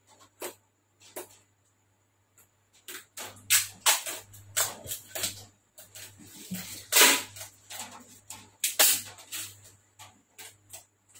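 Hands working on foam RC airplane parts at a workbench: an irregular string of clicks, knocks and short rubbing sounds, busiest and loudest in the middle. A steady low electrical hum runs underneath.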